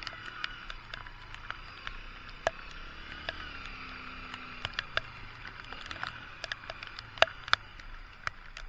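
Raindrops striking the camera in irregular sharp ticks, about two or three a second, over a steady hiss of rain and riding noise, with the faint low hum of a Honda XR150 motorcycle's single-cylinder engine underneath.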